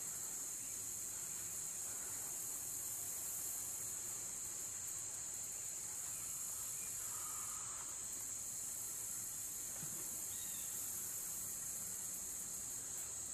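Steady high-pitched drone of an insect chorus, unbroken throughout.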